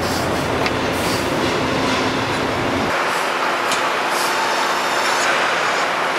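Steady machinery noise and hiss of a car assembly plant floor, with a few faint light clicks; the deep rumble underneath drops away about three seconds in.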